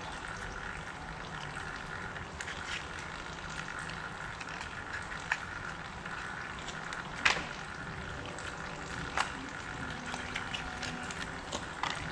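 Scattered metal clinks and knocks from hand work on the stump grinder's cutter teeth, loudest about seven seconds in, over a steady hiss.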